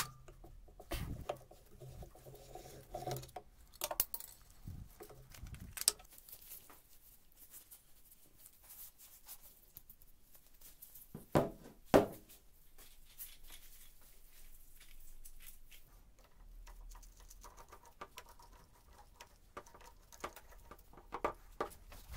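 Hands handling a homemade steel clamp and metal pipe fittings: scattered light clicks, taps and scrapes of metal parts, with two louder knocks about eleven and twelve seconds in.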